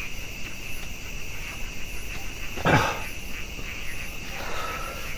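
Steady chorus of night insects, probably crickets, buzzing high. A bit past halfway comes one short, loud animal call that falls sharply in pitch.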